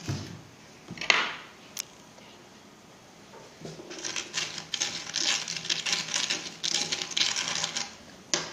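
Metal spoon stirring a mixture of sand and iron filings in a small glass dish: a rapid gritty scraping and clicking that starts about four seconds in. Two shorter louder scrapes come near the start and about a second in.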